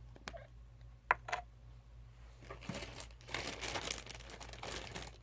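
Plastic quart-size toiletry bag crinkling as it is rummaged through, with a few light clicks in the first second and a half and denser, steady crinkling from about halfway in.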